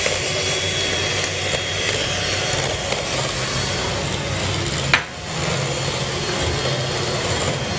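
Electric hand beater running, its twin beaters churning thick biscuit batter in a glass bowl as the egg is beaten in. There is a sharp click and a short dip in the sound about five seconds in.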